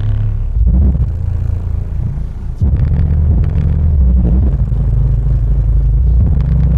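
Four Sony Xplod 12-inch car subwoofers playing loud, deep bass; the bass steps up louder about two and a half seconds in.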